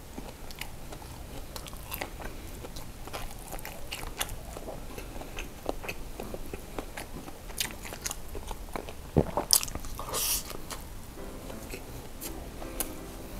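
Close-miked chewing of a mouthful of cheese sausage and rice: soft wet mouth clicks and smacks, with a few louder smacks about nine to ten seconds in.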